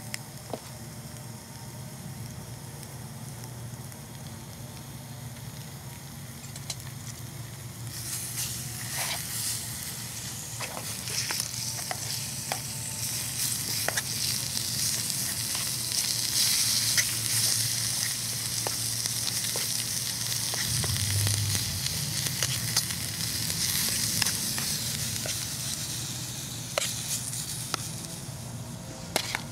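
Ground beef sizzling in olive oil in a small frying pan over a wood fire. A utensil scrapes and taps the pan as the meat is broken up and stirred. The sizzle grows louder from about eight seconds in.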